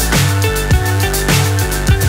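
Background electronic music with a heavy bass line and a steady drum beat.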